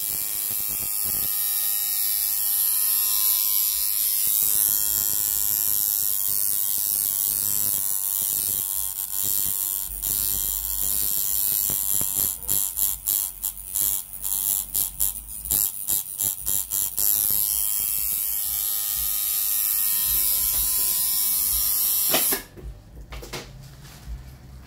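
Tattoo machine buzzing steadily while tattooing, cutting in and out in quick stutters for several seconds midway, then switching off suddenly about two seconds before the end.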